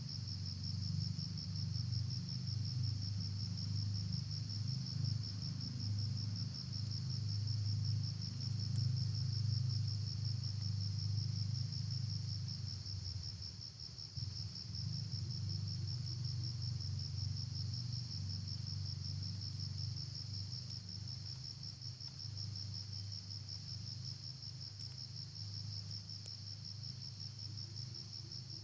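Insects trilling in a steady, high-pitched, fast-pulsing chorus, over a low rumble that eases off about halfway through.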